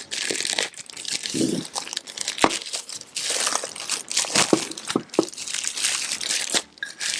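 Packaging crinkling and rustling as a docking station is unwrapped from its protective wrapping, with scattered small clicks and knocks of handling.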